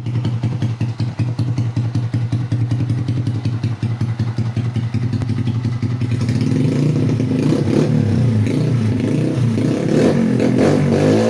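Honda TMX 125 Alpha's single-cylinder engine running through an aftermarket Leo Vince exhaust, idling with a quick, even pulse. From about six seconds in it gets louder and the pitch rises and falls as the throttle is revved.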